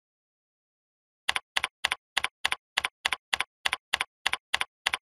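Computer keyboard keystrokes typed at an even pace, about three a second, about a dozen in all, starting a little over a second in.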